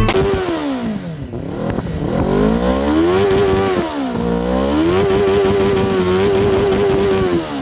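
Benelli TNT 600i's 600 cc inline-four engine being revved: the revs fall away, climb and drop twice, then hold high and steady for a couple of seconds before falling off near the end.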